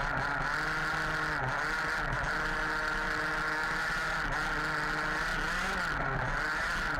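Small two-stroke petrol engine of a 1/5-scale HPI Baja 5B RC buggy running hard. It revs up and drops back several times as the throttle is opened and eased off, with brief dips about one and a half, four and six seconds in.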